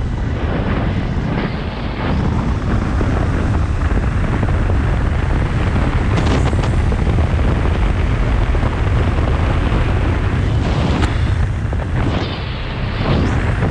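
Motorcycle riding at road speed: heavy wind buffeting on the microphone as a steady low rumble, with the engine and road noise underneath. The rumble eases briefly about twelve seconds in.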